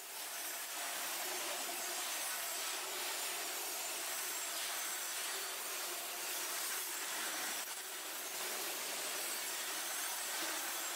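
Double-stack intermodal container cars rolling past, a steady rasping rush of steel wheels on rail that dips slightly in level a little before the end.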